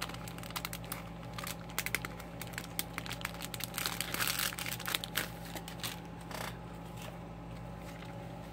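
Clear plastic wrapper of a sticker pack being opened and crinkled by hand: a run of sharp crackles that dies away after about six and a half seconds, over a steady low hum.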